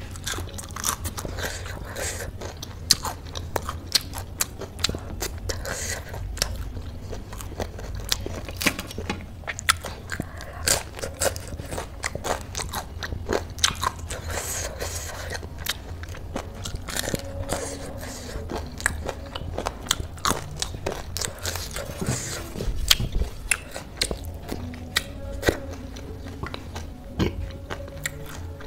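Close-miked biting and chewing of crispy fried eggplant slices (begun bhaja): many sharp, irregular crunches with wet mouth sounds.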